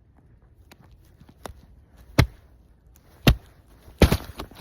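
Thin ice over shallow water being stamped on and broken through: three sharp cracks about a second apart, the last followed by a brief crunch of breaking ice, with a couple of fainter knocks before them.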